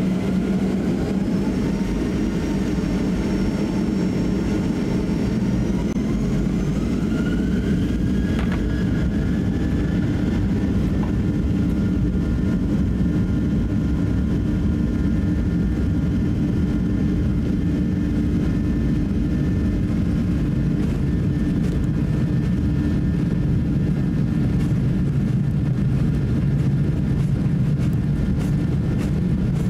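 Boeing 737-800's CFM56 jet engines heard from inside the cabin, spooling up to takeoff thrust: a whine rises in pitch over the first several seconds, then holds steady over a heavy rumble as the aircraft rolls down the runway for takeoff.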